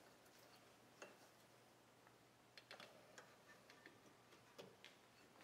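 Near silence, broken by a few faint scattered clicks of small metal parts as hands work the brake line bracket and ABS sensor clip on a front strut.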